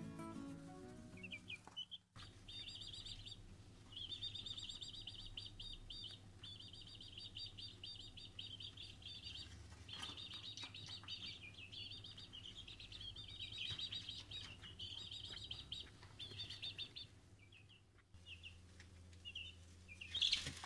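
Egyptian Fayoumi chicks chirping: long runs of rapid, high trilling chirps, broken by short pauses, that sound almost like crickets.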